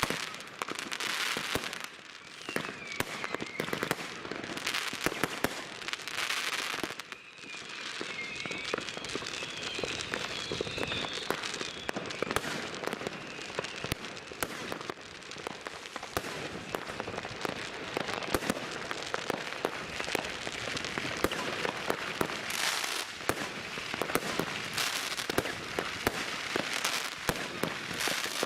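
New Year's Eve fireworks: a dense, continuous run of firecracker and shell bangs with crackling and hissing bursts. Between about two and twelve seconds in, whistles waver up and down in pitch over the bangs.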